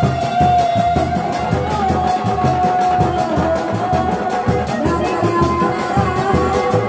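A Sundanese reak drum ensemble playing on the move: a large rope-tensioned barrel drum and dog-dog drums beaten in a driving, uneven rhythm, with a fast even ticking in the highs. A held, slightly wavering melody line runs over the drums and changes pitch about five seconds in.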